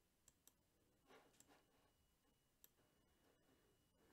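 Near silence: faint room tone with a few soft mouse clicks.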